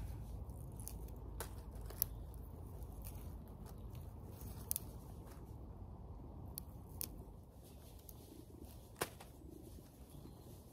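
Snowdrop clumps being pulled apart by hand: scattered small snaps and crackles among the plants and dry leaves, over a low steady rumble. The sharpest snaps come about two seconds in and about nine seconds in.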